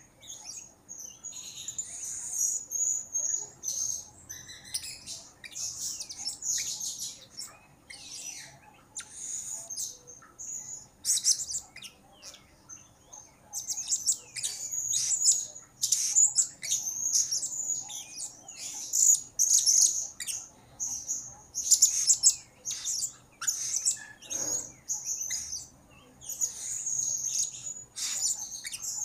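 Blue-crowned hanging parrot (serindit) chirping: rapid runs of short, very high-pitched calls, broken by brief pauses.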